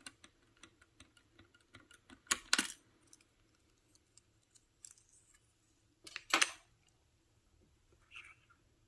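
Plastic keycaps and keyboard being handled: a run of small light clicks, then two louder clattering knocks about two and a half and six seconds in, and a softer one near the end.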